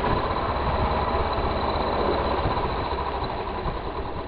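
A vehicle engine running steadily: a low rumble with a faint steady whine, easing off slightly near the end.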